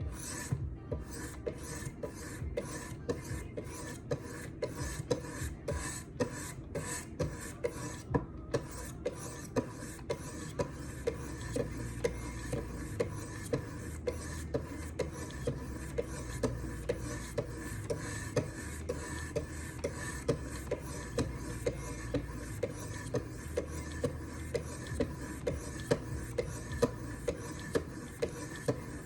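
Knife edge being stroked on the 400-grit diamond stones of a Wicked Edge guided sharpener: a steady run of short rasping scrapes, about two strokes a second.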